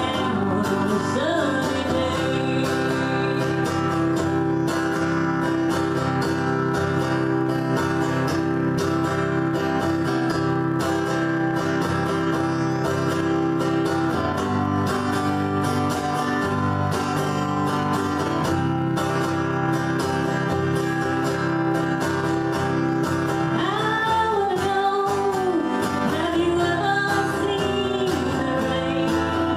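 A country-style song with guitar and sustained chords. A singing voice comes in for a few seconds near the end.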